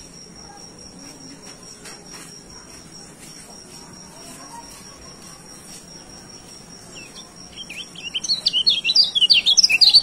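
White-eye (kecial) singing a rapid, loud jumble of short high chirps, starting about seven and a half seconds in. Before that only a steady high whine is heard.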